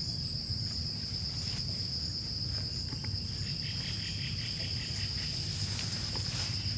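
Steady, high-pitched chorus of crickets and other insects trilling continuously, with a low rumble underneath. A brief run of quick chirps comes about midway.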